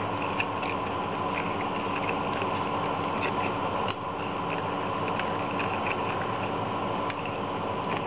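Metal spoon stirring yeast and water in a bowl, clicking lightly against the bowl at irregular moments, over a steady mechanical hum.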